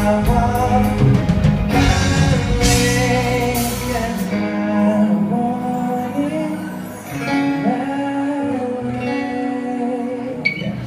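Live band rehearsing, with guitar and drums under a sung melody of held and gliding notes; the drums drop out about four seconds in, leaving voice and lighter accompaniment.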